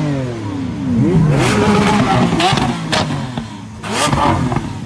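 Lamborghini's engine revved in repeated blips through its exhaust, the pitch rising and falling back several times. Sharp cracks come in among the revs.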